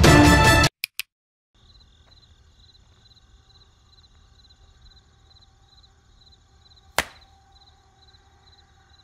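Music cuts off abruptly, followed by two short clicks. Then comes a faint night ambience of crickets chirping steadily about twice a second over a low hum. About seven seconds in there is a single sharp slap, a hand smacked against a face in a facepalm.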